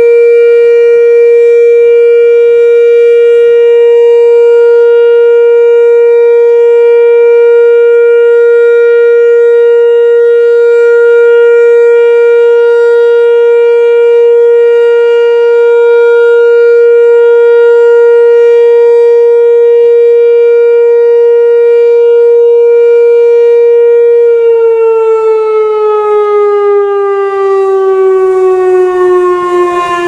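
Whelen WPS 2740 electronic outdoor warning siren sounding its loud steady alert tone on one held pitch. About 24 seconds in, the pitch starts to fall slowly as the tone winds down.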